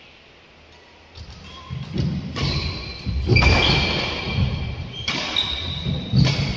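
Badminton rally on a wooden indoor court: rackets hitting the shuttlecock and players' feet thudding on the floor as they move. It starts about a second in, with brief high squeaks among the knocks.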